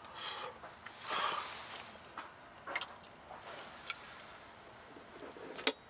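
Quiet eating sounds: two soft breathy, chewing noises, then scattered light clicks and clinks of metal utensils against steel dishes, the sharpest one near the end.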